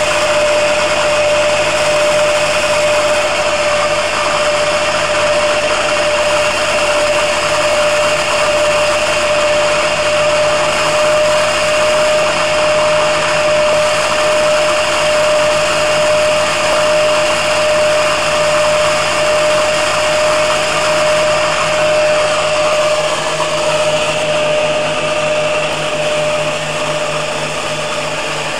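Zanussi ZWS 3122 front-loading washing machine on its spin cycle, giving a steady high whistle over a loud roar. The noise eases a little near the end.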